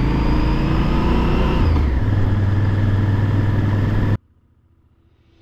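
Honda XL1000V Varadero's V-twin engine pulling uphill under load, with wind rush. The note shifts briefly about two seconds in. About four seconds in the sound cuts off abruptly to near silence.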